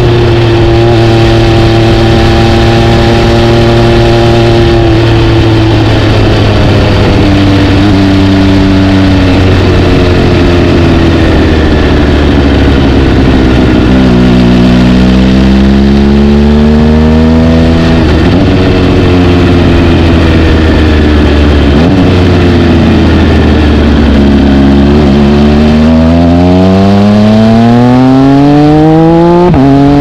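2019 MV Agusta Brutale RC's three-cylinder engine through an SC Project titanium exhaust, ridden on the road. It holds a steady pitch for a few seconds, eases off with the pitch falling, picks up again, and near the end accelerates with a long rising pitch, briefly dropping as it shifts gear.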